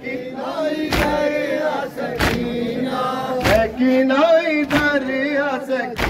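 A crowd of male mourners chanting a noha in unison, with a sharp, unison chest-beating (matam) strike about every second and a quarter, five in all.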